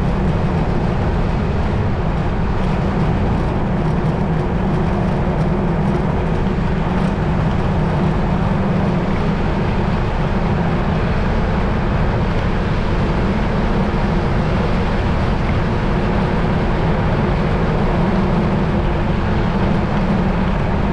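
Loud, steady rush of wind over the microphone mixed with tyre noise from a bicycle coasting down a long hill at high speed, close to 38 mph.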